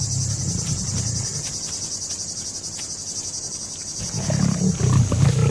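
Lions making a low, pulsing rumble of a purr during courtship between a lioness and a male, which is heard in the opening second and again from about four seconds in. Insects keep up a steady high buzz throughout.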